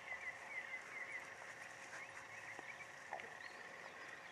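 Faint outdoor ambience: a quick run of short, high chirps in the first second over a steady faint high hum, with a few light clicks.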